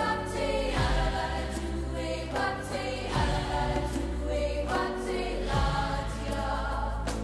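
Background music: sustained choir singing over deep bass hits that land every one to two seconds.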